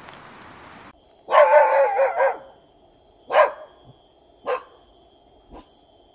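Dog barking: a longer, wavering bark about a second in, then three short single barks about a second apart, the last one faint.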